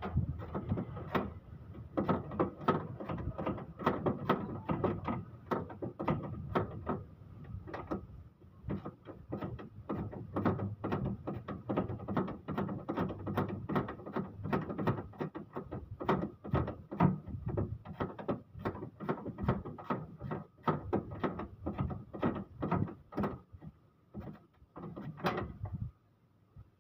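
Hand work on the front of a Toyota 2L diesel engine during timing belt removal: irregular clicks, knocks and rattles of metal and plastic parts, several a second.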